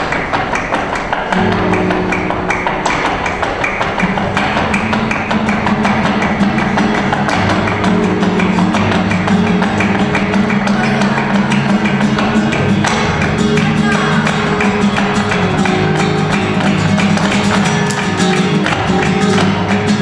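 Live flamenco music: a nylon-string flamenco guitar playing, with rhythmic hand clapping (palmas) running through it.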